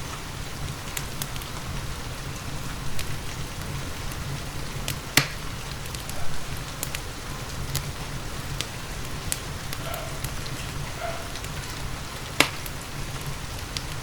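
Steady rain with a wood fire crackling in a fireplace: small ticks throughout and two sharp pops, about five seconds in and near the end.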